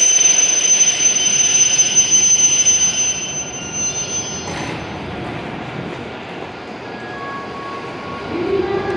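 E7 series Shinkansen train rolling slowly into the platform and coming to a stop. A high, steady squeal over the train noise fades out about three to four seconds in, as the train halts. A short hiss follows about a second later.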